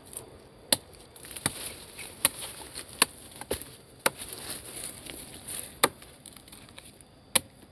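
Chopping strokes into the wood of an Albizia tree trunk, about one every three-quarters of a second, widening a narrow hole to get at a bee nest inside.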